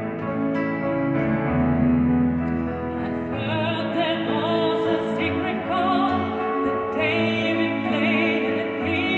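Live music: a keyboard and violin hold sustained notes, and about three seconds in a woman's voice enters, singing in an operatic style with a wide vibrato over the accompaniment.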